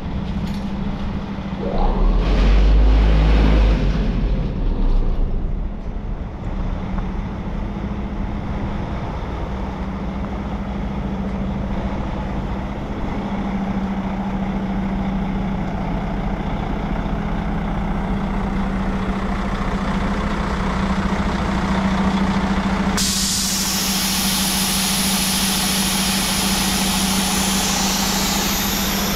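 2007 Sterling LT9513 quad-axle dump truck's diesel engine idling steadily with the dump body raised. There are a few loud air-release surges in the first few seconds, and a steady loud hiss starts suddenly about 23 seconds in.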